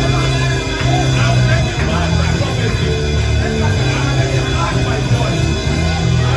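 Loud band music, with sustained low chords that change every second or so.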